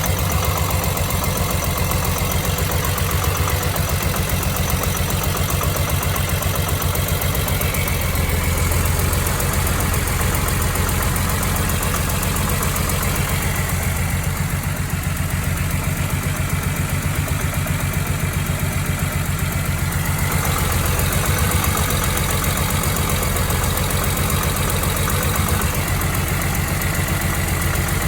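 BMW E46 M3's S54 straight-six idling rough with an engine knock, a steady fast pulsing that runs on without a break.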